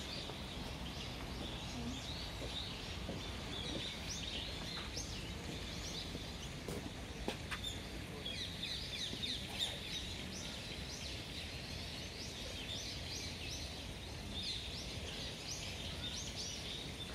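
Small birds chirping in the trees, many quick high calls coming in repeated bursts, over a steady low background hum. A couple of sharp ticks stand out about seven and ten seconds in.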